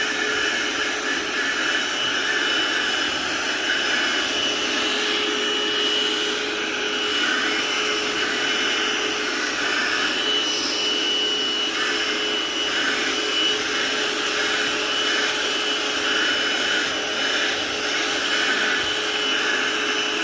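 Vacuum cleaner running steadily, with a constant whine, its pitch wavering slightly as the nozzle moves over a cat's fur.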